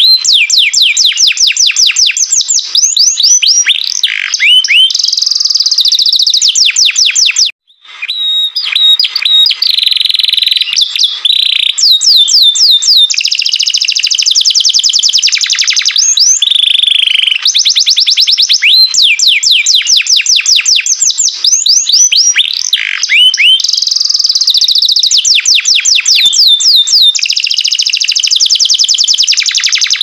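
Domestic canary singing a continuous, loud, high-pitched song of rapid trills and rolling repeated phrases, broken once by a brief gap a little before the middle.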